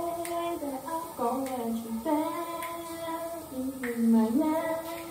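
A woman's voice singing a slow melody with long held notes, sliding between pitches; the loudest note comes a little before the end.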